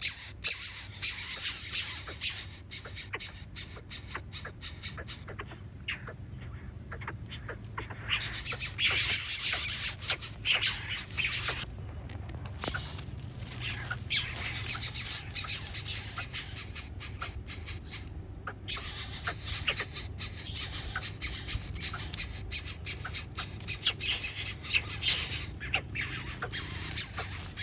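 Nestling birds squawking and chattering rapidly in long runs of harsh, high-pitched calls, with brief breaks, over a low steady hum.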